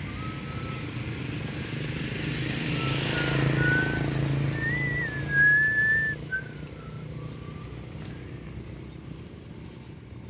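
A motor vehicle passing by: a low engine hum with road noise that grows louder to a peak about three to four seconds in, then fades away. A thin, wavering high tone sounds over the middle part.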